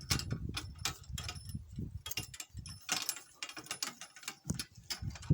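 Metal harness and cart fittings jingling and clicking irregularly as a donkey pulls a cart at a walk.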